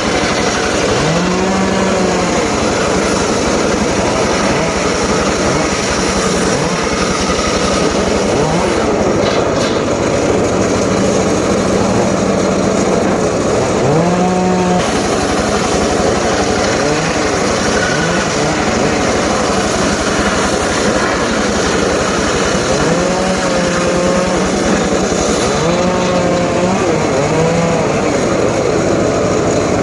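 Homemade engine-driven circular saw running loud and cutting wood. The engine's pitch sweeps up and settles several times, rising as it picks up speed again.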